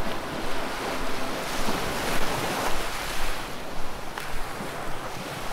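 Ocean surf washing over a rocky shore, a steady rushing that swells and eases.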